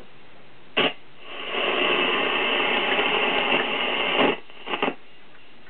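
A Zenith Trans-Oceanic transistor radio's speaker hissing with static for about three seconds. A sharp click comes about a second in, and two short clicks come near the end.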